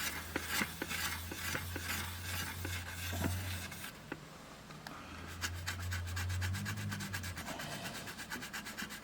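Rubbing and light scraping on the small parts of an opened multimeter as they are handled, with many small clicks and quick, even strokes in the last couple of seconds. A low hum sounds underneath for much of it.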